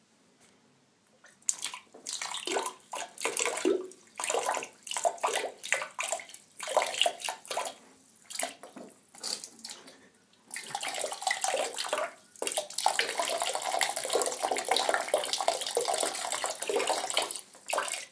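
A man urinating into a toilet bowl, the stream splashing into the water. It comes in short spurts at first and runs as a steady stream from about ten seconds in, with one brief break.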